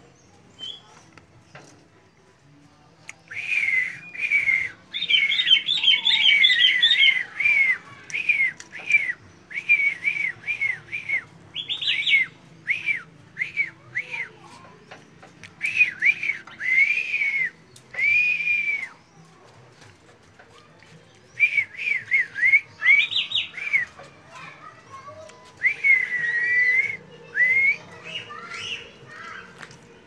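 Caged songbird singing in loud, clear whistles: phrases of short notes that swoop up and down, some in quick runs, broken by pauses of a second or two.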